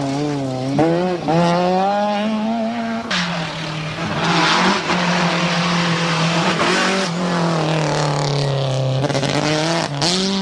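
Rally cars passing at speed in turn: an Opel Calibra, then a BMW M3, then another car near the end. Each engine revs hard, its pitch climbing and dropping with throttle and gear changes, with the hiss of tyres and gravel on the loose surface.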